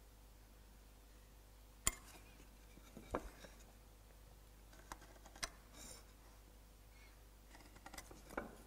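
A handful of light clicks and taps as a pencil and square are set against a wooden stile, with faint pencil strokes between them; otherwise quiet.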